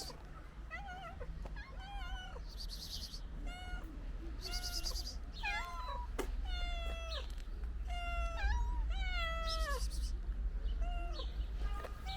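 Several cats meowing again and again, many short high calls that mostly fall in pitch, coming thicker and louder in the second half. A few short hissy bursts of noise come in between the meows.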